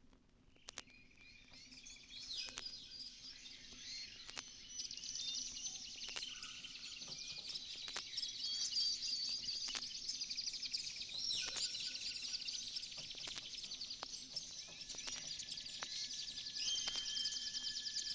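A chorus of tropical bird calls and chirps, the sampled birdsong intro of a 1990s house track, fading in, with scattered vinyl surface clicks. A couple of steady high tones join about three-quarters of the way through.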